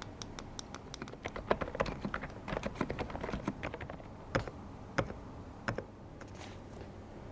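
Typing on an Epomaker TH108 V2 Pro full-size mechanical keyboard with silent switches: a quick run of soft key clicks for about four seconds, then three single, louder key presses spaced out.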